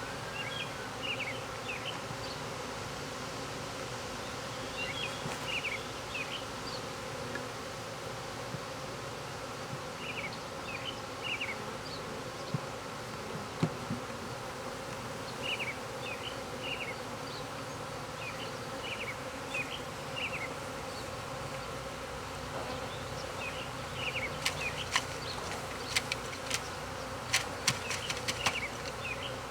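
A swarm of honeybees buzzing in a steady, dense hum. Short high chirps recur every few seconds, and several sharp clicks come near the end.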